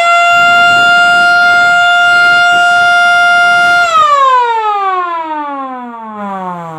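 MS-390 electric alarm siren sounding a loud, steady high wail. About four seconds in it cuts out and winds down in a long falling glide as the siren slows after the power is cut.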